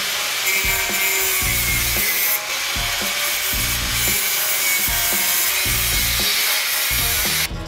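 Electric angle grinder cutting into steel tube, a harsh grinding hiss with a steady high whine, cutting off near the end. Background music with a steady beat runs underneath.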